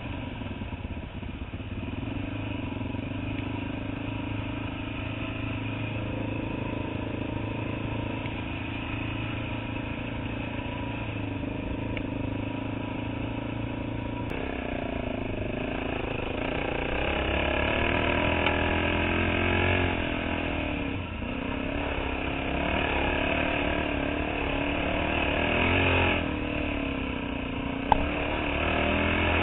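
Dirt bike engine heard from the rider's helmet camera, running steadily at first, then rising and falling in revs and getting louder in the second half as the throttle is worked. A short sharp click near the end.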